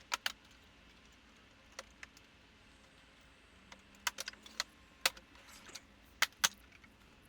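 Scattered sharp clicks and taps of hands and tools working on a laser printer's plastic housing and parts, coming in small irregular clusters, the loudest two a little after six seconds in.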